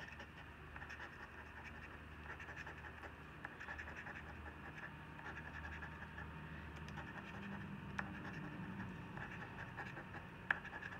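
A coin scraping the coating off a lottery scratch-off ticket: a faint, steady scratching, with two small clicks, one about eight seconds in and one near the end.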